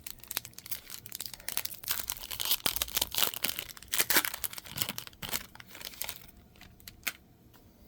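A basketball trading card pack wrapper being crinkled and torn open by hand. The crackling is busy for about six seconds, then gives way to a lone crackle near the end.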